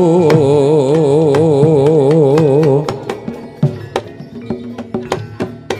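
Javanese gamelan music for a jaran kepang dance: a singer holds one long note with a wide vibrato over a steady low sustained tone. About three seconds in the voice stops and the music drops much quieter, leaving sparse sharp drum strikes and ringing metallophone notes.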